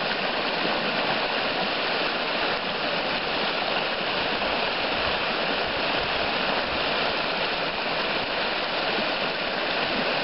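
Mountain stream rushing over rocky riffles and small rapids, a steady, even rush of water.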